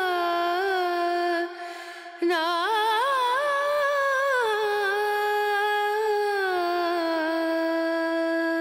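Background music: a solo voice sings a slow, unmetered Carnatic-style melody on long held syllables such as "na", with sliding, wavering ornaments. The voice breaks off briefly about a second and a half in, comes back with a climbing, ornamented phrase, and then settles onto a long held note.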